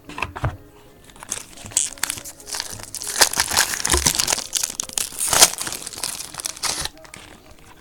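Foil trading-card pack wrapper crinkling as it is torn open and handled, a dense crackle that stops abruptly near the end.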